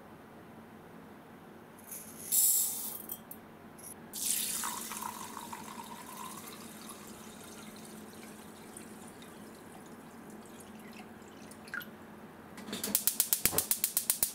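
Water poured from a glass measuring jug onto raw rice in a clay donabe pot, a splashing pour from about four seconds in that tails off into a low trickle. Near the end comes a fast run of sharp clicks, about ten a second, typical of a gas hob's igniter sparking. A short burst of noise comes about two seconds in.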